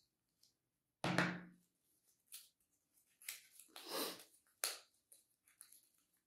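Paper-flower layers and tools being handled on a worktable: a knock about a second in, then several short scuffing sounds.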